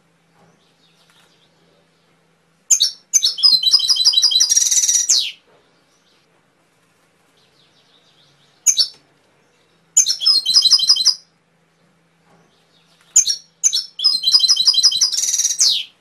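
Domestic canary singing three phrases of about two and a half seconds each, with pauses between. Each opens with a single sharp note and runs into a fast trill of repeated notes; the first and last end on a higher, buzzier roll.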